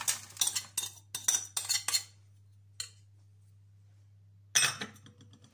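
Spice-coated, boiled-and-dried penne and fusilli pouring out of a bowl and rattling into a metal baking tray for about two seconds. A single click follows, then a short, sharper clatter near the end.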